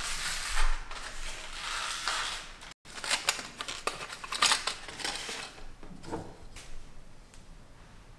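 Crinkling and clicking of a hard plastic blister pack of pin-type picture hooks being handled, with a short break a little under three seconds in; the sounds thin to a few light clicks near the end.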